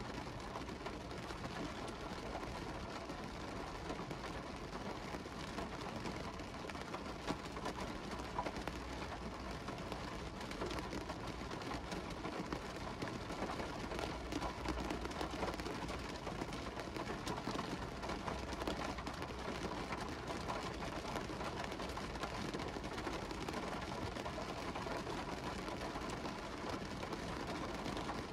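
Rain falling on a car window, heard from inside the car: a steady hiss of rain with many small drop ticks on the glass.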